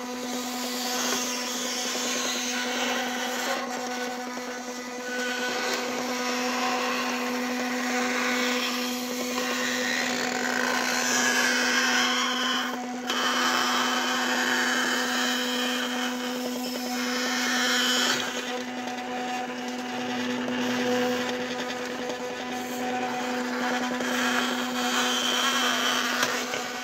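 Electric motor of a homemade PET-bottle filament puller running with a constant hum, turning its 3D-printed plastic gears, with a shifting whir from the gearing above the hum.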